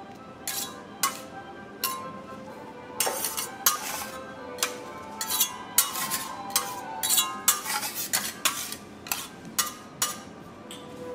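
Metal kitchen utensils clinking and tapping against each other and on hard surfaces. The strikes come irregularly, some with a short ringing tone, and are most frequent in the middle.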